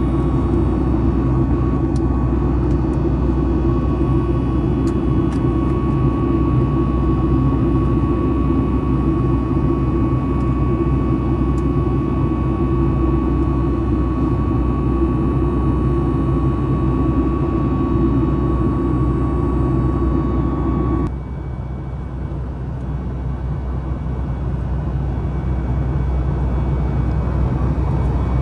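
Steady cabin noise of a Boeing 737 MAX 9 in flight: the deep drone of its CFM LEAP-1B turbofans and airflow, with a steady whine above it. About 21 seconds in, the sound drops suddenly and the whine stops, then the drone slowly builds again.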